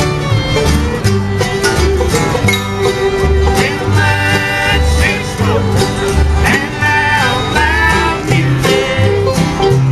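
A bluegrass band playing live: banjo and guitar over a steady alternating bass line, about two low notes a second.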